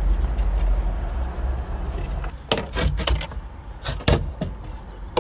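Plastic clips snapping and trim knocking as a car's door kick plate is pried loose and pulled off: a low handling rumble, then several sharp clicks and knocks in the second half.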